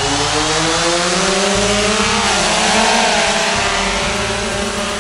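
Autel Robotics X-Star Premium quadcopter's four motors and propellers spinning up at takeoff. A loud whirring buzz starts suddenly and rises in pitch over the first two seconds, wavers up and down as the drone lifts off, then holds steady.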